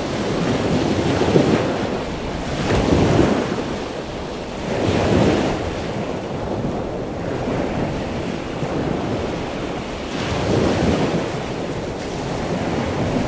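Ocean waves washing onto a shore, the surf swelling and fading every few seconds.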